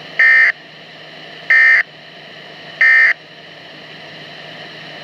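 Weather radio's SAME digital data tones: three short, identical warbling bursts about a second apart, each about a third of a second long, over a steady receiver hiss and hum. Their shortness matches the brief end-of-message code of an EAS/SAME alert.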